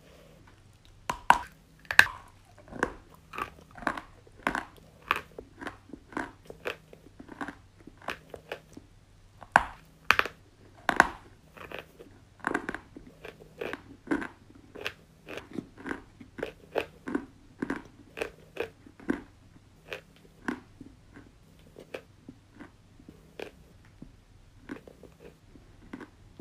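A stick of white chalk being bitten and chewed: a run of sharp, dry crunches, about two a second. The loudest bites come about a second in and again around ten seconds in, and the crunches get softer and sparser toward the end.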